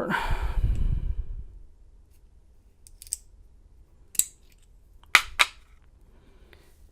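An American 700 padlock being taken apart by hand: a low handling rumble at first, then a few sharp metallic clicks, two of them in quick succession about five seconds in.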